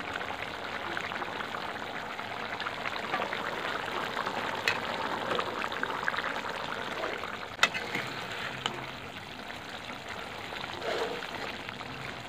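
Curry simmering and bubbling steadily in a metal pan on a gas stove while a metal ladle stirs it, with two sharp clicks of the ladle against the pan, one just before the middle and one a few seconds later.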